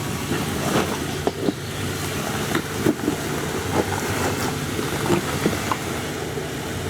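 Jeep Wrangler Unlimited's engine running at low revs while rock crawling, a steady low hum, with scattered sharp clicks and knocks through the middle of the stretch.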